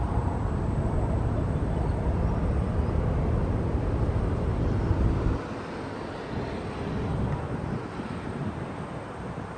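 Boeing 787-8 Dreamliner on final approach, its jet engines heard as a distant rumble mixed with wind noise; the low rumble drops away suddenly about halfway through.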